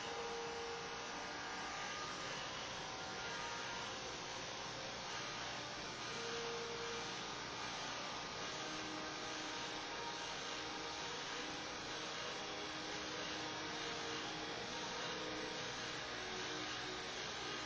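Electric hair clippers running steadily with a constant buzzing hum.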